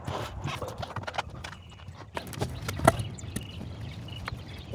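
Irregular knocks, taps and rustling as a heavy power cable and its wires are handled and fed through a hole in the RV's storage compartment, with the loudest knock about three seconds in.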